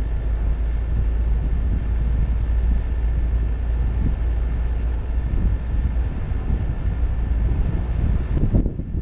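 Vehicle driving along the road: a steady low rumble of wind and road noise on the microphone. Near the end the higher part of the sound cuts off suddenly and it turns duller.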